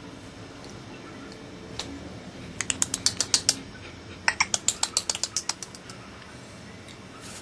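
Two quick runs of sharp clicking taps, about ten a second, the second run a little longer, over a low steady background hum.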